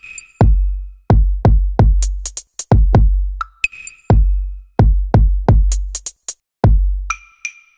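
Electronic intro music: a drum-machine beat of deep bass-drum kicks that drop in pitch, with short high ticks and a few short ringing high notes. It stops abruptly at the end.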